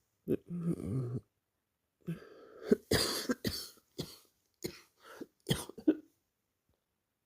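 A person hiccuping: a sharp hiccup and a short voiced sound in the first second, then a run of about eight sharp, abrupt hiccups between about two and a half and six seconds in, the loudest about three seconds in.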